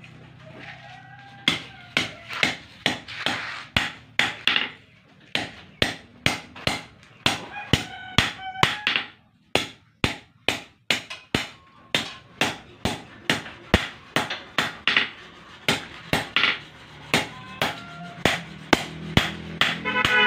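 Hand hammer striking a red-hot steel blade, forged from a motorcycle brake disc, on a steel post anvil. The hammering starts about a second and a half in and runs at about two to three blows a second, with a short pause near the middle. Each blow is a sharp clang with a brief metallic ring.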